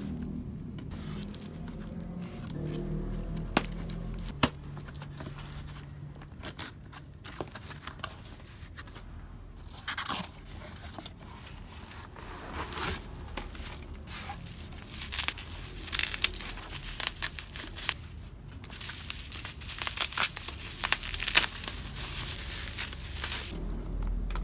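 A taped cardboard parcel being cut and torn open with a box cutter: scraping, tearing and crinkling of tape and cardboard, with scattered sharp clicks. Faint music fades out in the first few seconds.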